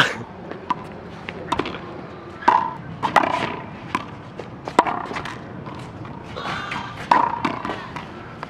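Racquetball play: a racquetball being struck again and again, about a dozen sharp, irregular smacks of the ball off racquets, walls and the concrete court, each with a short ringing echo.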